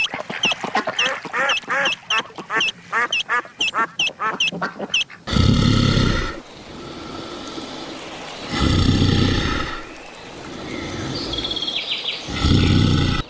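Animal calls: a rapid series of short, high chirping calls, about three a second for some five seconds, then three loud, deep roaring calls a few seconds apart.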